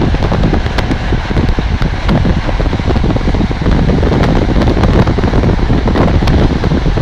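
Strong wind buffeting a microphone held at the open window of a fast-moving express train, over the rumble of the train running on the rails, with many small crackling clicks.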